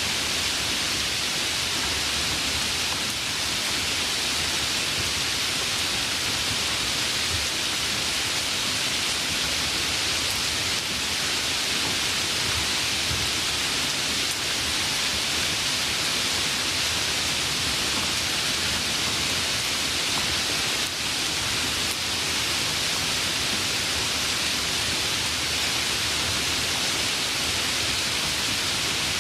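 Steady rainfall, an even unbroken hiss of drops at constant strength.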